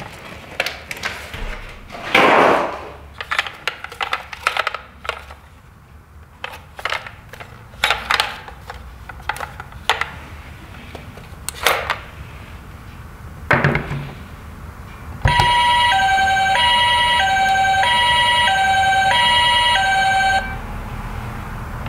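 Clicks and plastic rustles as the toy ambulance is handled and set down. About 15 s in, its electronic siren starts, the Japanese two-tone 'pee-po' with a high and a low note alternating, each held a little under a second. It runs for about five seconds, then stops.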